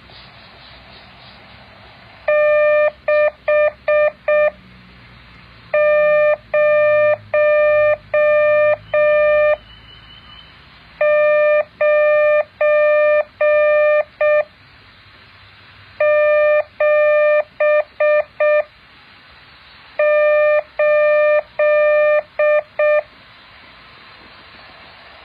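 Morse code practice tone: a single steady beep keyed on and off in dots and dashes. It is sent in five groups of characters with pauses of one to two seconds between them.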